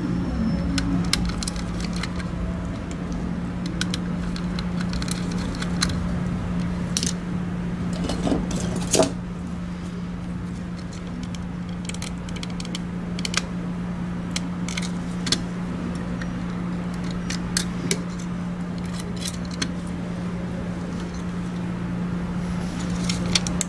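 Irregular small plastic clicks and taps as a Logitech G Pro Wireless mouse's shell is pried apart and handled with tweezers, a few sharper snaps about eight and nine seconds in, over a steady low hum.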